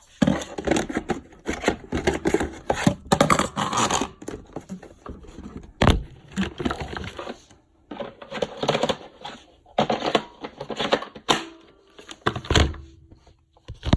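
Hard plastic robot vacuum clattering, scraping and knocking, with a run of uneven rattles and several sharp knocks along the way.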